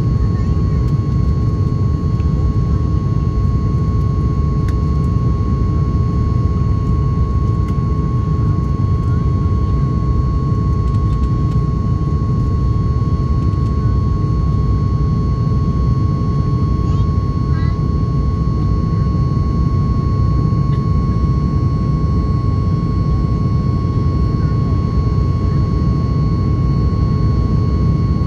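Cabin noise inside a Boeing 737 jet airliner during the climb after takeoff: a loud, steady rumble of the jet engines and airflow, with a steady high whine running over it.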